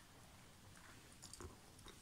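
Near silence: room tone with a few faint clicks of a die-cast toy car being handled.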